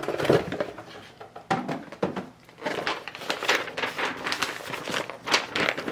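Cardboard doll box being opened, with its tissue-paper wrapping rustling and crinkling in an irregular run of rustles as it is pulled back.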